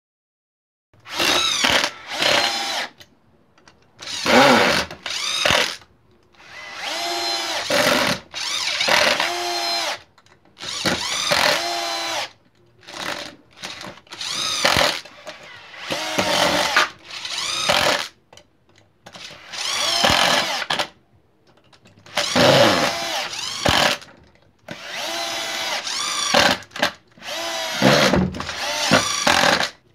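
Two electric screwdrivers, a Makita TD0101F corded impact driver and a Bosch 12 V cordless driver, drive black drywall screws into soft wood one after another. Each screw is a short burst of motor whine, a second or so long, rising and falling in pitch, with about twenty bursts in all.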